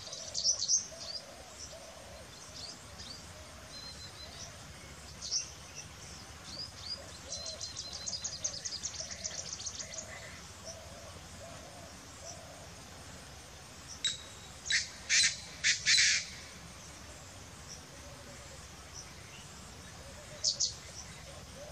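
Painted francolin calling: loud, harsh, scratchy notes at the very start, a phrase of about five notes about fourteen seconds in, and a short two-note call near the end. Small birds twitter faintly in between.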